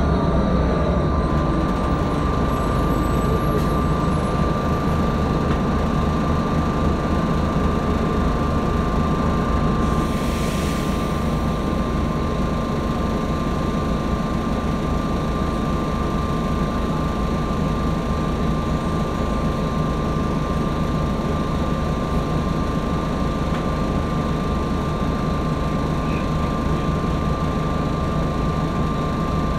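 Interior noise of a New Flyer D60HF articulated diesel bus running: steady drone and rumble from its Detroit Diesel Series 50 engine and running gear, with a constant high whine. There is a brief hiss about ten seconds in.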